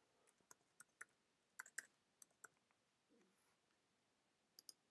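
Faint computer keyboard keystrokes and mouse clicks: about nine quick clicks in the first two and a half seconds, a gap, then two more near the end.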